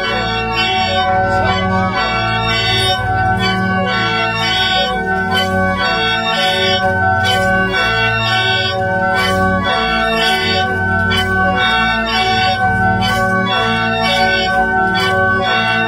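Mro plung, gourd-and-bamboo free-reed mouth organs, played together in sustained, layered chords with a regular pulse in the low notes, as dance music.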